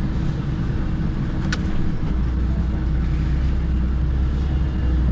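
HGV lorry's diesel engine running with a steady low rumble, with one short sharp click about a second and a half in.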